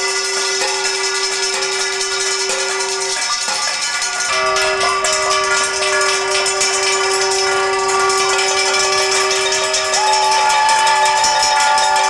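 Noise demonstration: a dense clatter of sticks and metal utensils beaten against a corrugated metal fence, over long steady horn tones that hold their pitch. A higher horn tone joins near the end.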